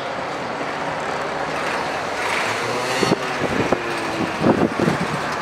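Street noise with a motor vehicle running, a steady low rumble.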